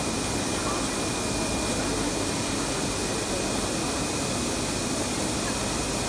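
Steady whooshing machine hum with a faint high whine that fades about five seconds in: a Ricoh G5 UV flatbed printer running, its print carriage moving over the bed, amid room noise.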